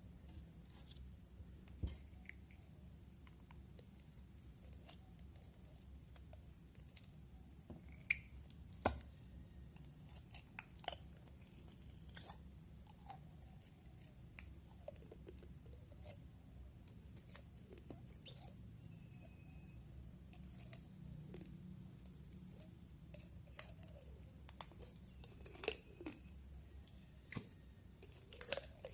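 Green slime being handled and squished: scattered small clicks, pops and crackles, a few of them louder.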